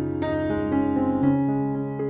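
Slow, soft piano background music; a chord is struck about a quarter second in and rings on while further notes enter.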